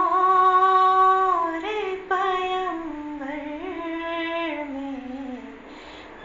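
A female voice singing a slow devotional melody with no instruments: one long held note, then a phrase that slides downward and fades near the end.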